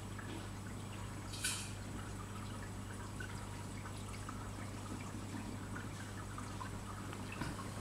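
Aquarium water trickling and dripping steadily over a constant low electrical hum, with one short louder burst of water noise about a second and a half in.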